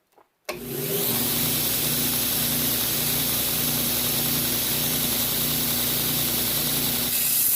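Electric grinder switched on about half a second in, spinning up and then running steadily, with a change in tone near the end, ready for the preliminary edge grind on a steel knife blade.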